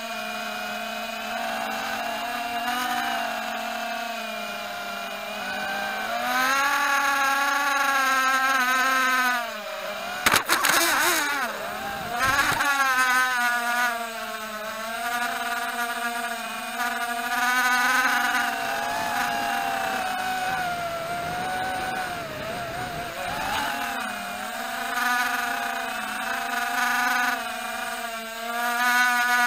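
Walkera Rodeo 110 quadcopter's motors and propellers whining in flight, the pitch rising and falling with the throttle. About ten seconds in there is a brief cluster of sharp clicks, and the whine drops steeply and then climbs back, typical of the props striking something and the motors spinning back up.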